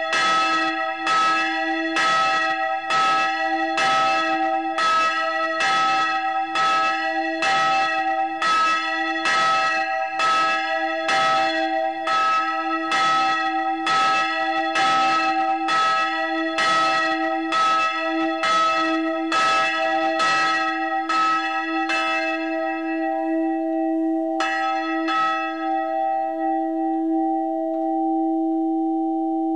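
Church bell (bell 4 of the Christophoruskirche) swinging and struck by its clapper about once a second, each stroke ringing into the next. Near the end the strokes stop as the bell swings to rest; one last weak stroke follows, and the bell's hum rings on.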